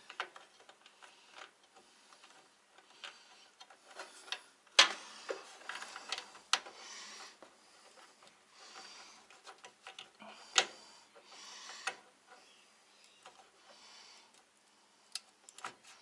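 Small irregular clicks, taps and rustling from handling PC cables and plastic connectors while fitting the front-panel leads onto a motherboard, with a few sharper clicks, the loudest about five seconds in and about ten and a half seconds in.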